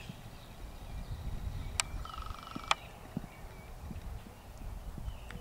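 Faint hoofbeats of a horse moving on arena sand under a steady low rumbling noise, with a few short high chirps and two sharp clicks about a second apart near the middle.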